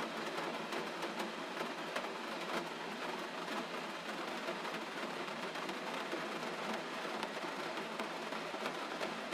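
Steady gentle rain: an even hiss with faint, scattered drop ticks.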